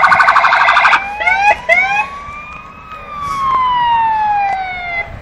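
Police car siren sounding: a fast pulsing warble for about a second, then a few short rising whoops, then a long slow rise and fall in pitch.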